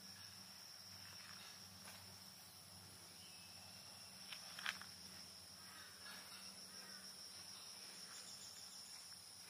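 Faint outdoor morning ambience: a steady high-pitched insect drone throughout, with a few soft bird chirps and a single sharp click about halfway through.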